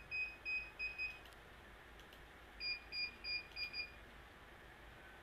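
CCTV DVR's alarm buzzer beeping at one high pitch in two bursts of about five quick beeps each, about four a second: one burst right at the start and another a little past halfway.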